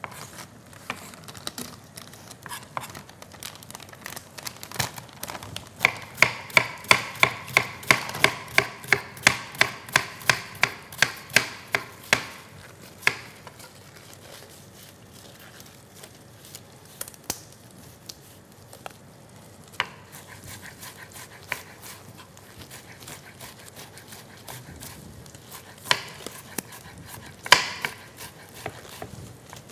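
Kitchen knife chopping onion on a wooden cutting board. A fast run of about four chops a second comes from about six to twelve seconds in, with a few single knocks near the end.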